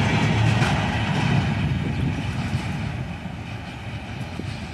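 Container flat wagons of a freight train rolling past on the rails. The low rumble of the wheels fades as the end of the train moves away.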